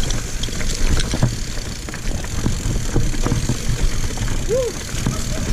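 Mountain bike riding down a rough singletrack trail: wind rumbling on the microphone over the rattle and clatter of the bike across roots and rocks, with a brief squeak about four and a half seconds in.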